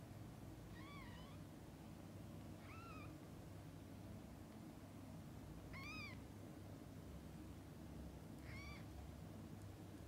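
Newborn kitten mewing four times: faint, short, high-pitched squeaks, each rising then falling in pitch, a couple of seconds apart.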